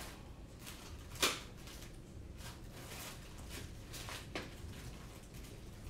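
A few scattered light clicks and knocks of small objects being handled, with one sharper knock about a second in and a smaller one near four and a half seconds.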